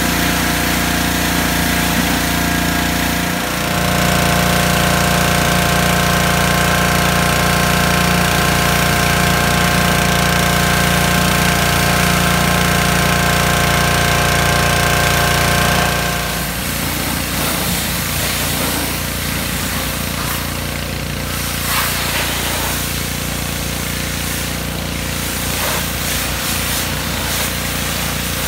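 Yamaha gas-powered pressure washer running steadily under load while the wand sprays water onto the car. About sixteen seconds in, the steady engine tone drops back and a rougher, noisier sound takes over.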